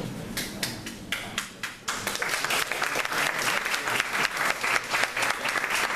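Audience applauding: a few scattered claps at first, swelling into full, dense applause about two seconds in.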